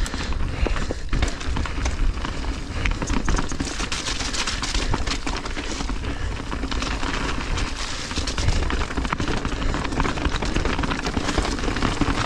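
Mountain bike rolling downhill on a dirt singletrack: tyres on dirt, leaves and rocks, with frequent small knocks and rattles from the bike over rough ground, under steady wind rush on the helmet-mounted microphone.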